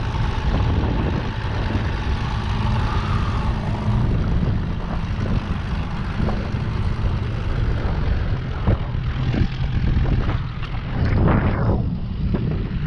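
Small outboard motor running steadily, driving the skiff along to chase a hooked fish.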